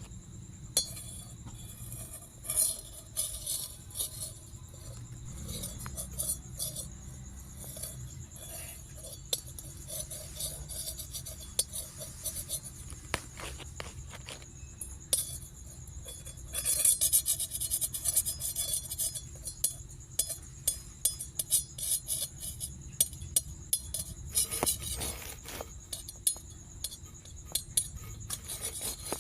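Metal utensils clinking and tapping at a roti street stall's griddle and dishes, in short sharp clicks over a steady background. About halfway through, a louder hiss joins in and the clinks come faster.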